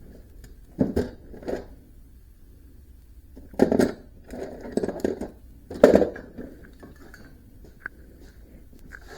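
A handful of irregular knocks and clatters of hard objects, like tools or metal parts being handled. The loudest come about four and six seconds in.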